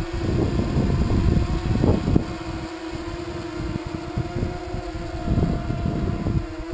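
Small quadcopter's four brushless motors (Multistar Elite 2204 2300Kv) and propellers humming steadily as it rises off the ground into a hover. Wind gusts hit the microphone during the first two seconds and again briefly later on.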